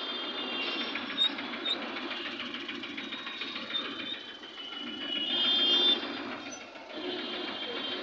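Busy street traffic with motorcycle and car engines running close by and high-pitched tones over them. It grows loudest about five to six seconds in.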